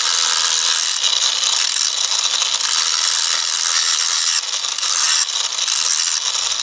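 MtiolHig 20V brushless cordless 4½-inch angle grinder grinding rust off steel: a steady, loud hiss of the disc on the metal over the motor's even whine, easing off briefly a little past the middle before bearing down again.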